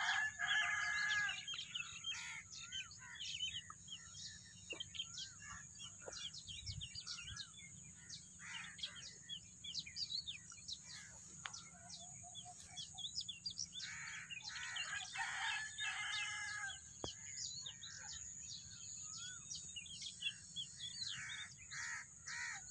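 Outdoor bird chorus: many birds chirping and calling, with a rooster crowing at the start and again about two-thirds of the way through, and a quick run of repeated calls near the end, over a steady high-pitched hiss.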